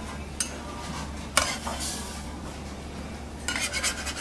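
Steel spatulas clacking and scraping on a flat iron teppan griddle as a thin crepe is folded. There is a sharp clack about a third of the way in and a quick run of scrapes near the end, over a steady low hum.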